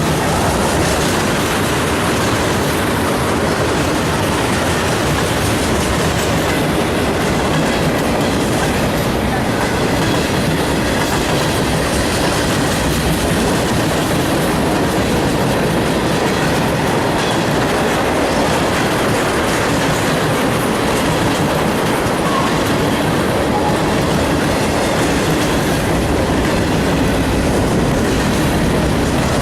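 Freight train cars rolling past close by, a steady loud rumble with wheels clacking over the rail joints.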